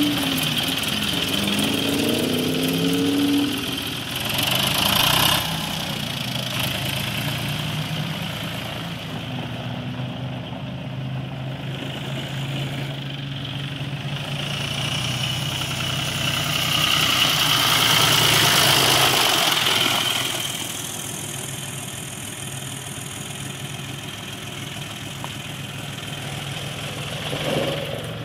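John Deere 5200 tractor's three-cylinder diesel engine running while the tractor is driven. The engine revs up in the first few seconds, then runs steadily, growing louder for a few seconds midway before easing off again.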